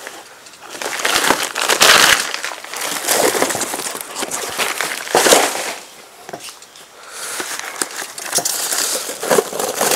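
Cardboard and plastic packing being pulled off and crumpled by hand, in repeated bursts of rustling and crackling, loudest about two and five seconds in.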